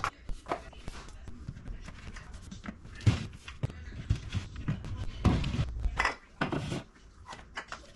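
Knocks, clicks and scrapes of a wooden cabinet shelf being tilted out and reset at a new height, with several sharp knocks, the loudest about five seconds in.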